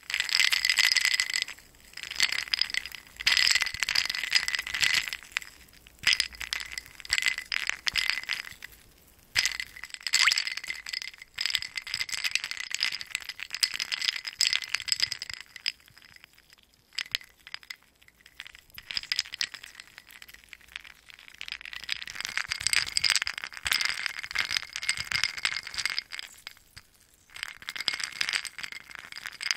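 Ice cubes rattling and clinking in a glass as it is moved, in bursts of a few seconds with short pauses between, the glass ringing faintly under the clinks.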